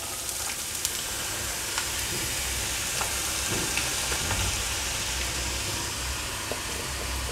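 Chopped bitter gourd deep-frying in hot coconut oil: a steady sizzle with a few faint crackles as the pieces go into the pan.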